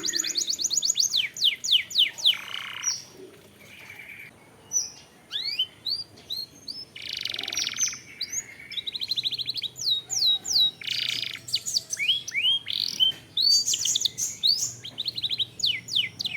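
Domestic canary singing a continuous song of fast trills, rapid runs of repeated down-sweeping notes and short buzzy, rasping phrases.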